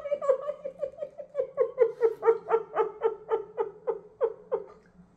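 A person laughing in a long, even run of short pitched 'ha' pulses, about four to five a second, that stops about four and a half seconds in.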